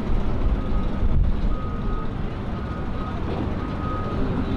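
A vehicle's reversing alarm beeping, short high beeps repeating somewhat less than a second apart, over a steady low engine rumble.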